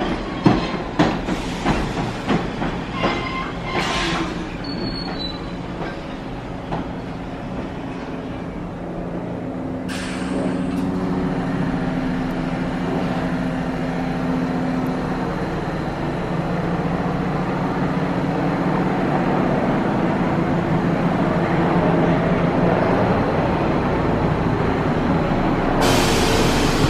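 R46 subway train rolling slowly into a stop, its wheels clicking over rail joints, the clicks thinning out over the first few seconds. It then stands with a steady mechanical hum. There is a short hiss about ten seconds in and a louder hiss near the end, just before the train moves off.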